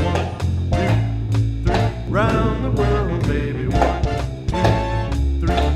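Music with a steady beat: sustained bass notes, drums and a melody line.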